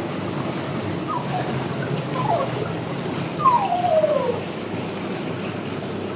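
Shih Tzu whimpering in several short falling whines, the longest near the middle, over the steady churning hiss of bubbling spa-bath water.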